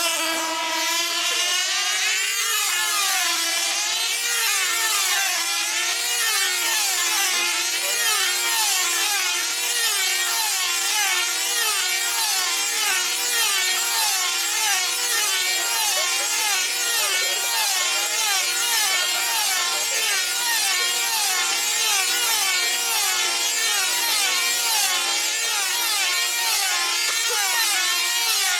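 Several F2C team-racing control-line model aircraft, each with a small 2.5 cc diesel engine, running at full speed as they lap the circle together. The engines' pitch climbs as the models get going in the first seconds, then each engine's whine swings up and down every lap as the model passes, the several tones weaving over one another.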